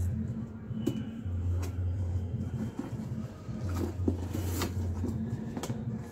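Cardboard packaging being handled: small product boxes knocking and scraping as they are lifted out of a cardboard shipping box and set down, with a brief sharp scrape about four and a half seconds in. A low hum comes and goes underneath.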